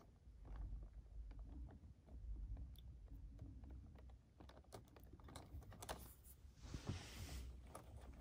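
Faint clicks and rustling of hands handling wiring harness connectors and cables inside an electric scooter's deck, with a brief louder rustle near the end.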